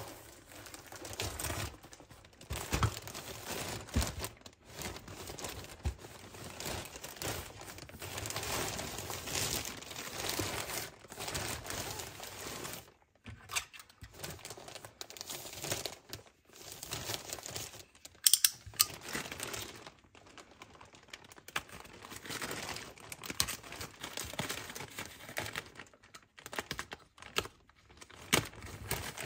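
Packaging being handled and unwrapped: crinkling and rustling of plastic and paper wrap, broken by short gaps, with scattered sharp clicks and taps, the loudest a little after halfway.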